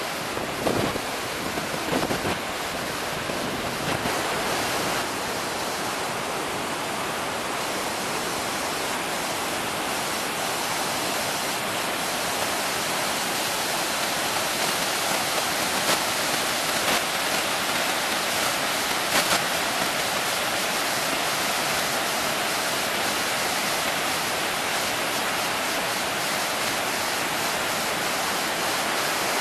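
Whitewater rapids rushing over rock: a steady, loud, unbroken roar of river water, with a few low bumps in the first two seconds.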